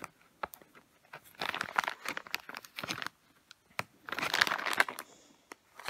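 Clear plastic bag of screws crinkling as it is worked open by hand, in two spells, about a second and a half in and again about four seconds in, with small clicks between.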